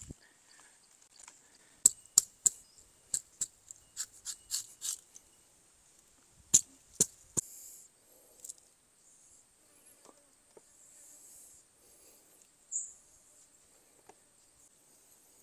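Dry bamboo cracking as a cooked bamboo tube of sticky rice is split open by hand: about a dozen sharp snaps in quick succession, the last two loudest, then faint rustling. A steady high insect buzz runs underneath.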